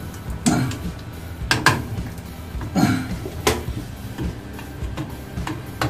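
A screwdriver clinking and scraping against metal pipe fittings while the hose connection on a small faucet is worked on: several irregular sharp clicks and knocks.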